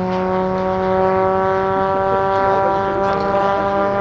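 Electric-powered large-scale Granville Gee Bee R-2 model aircraft in flight: its propeller and electric motor give a steady, loud, pitched drone that rises slightly in pitch.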